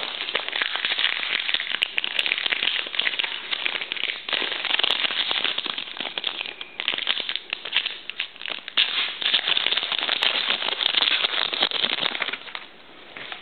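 Crinkling and crackling of a trading-card pack's plastic wrapper as it is torn open and handled, a dense run of small crackles with a few brief pauses, dying down near the end.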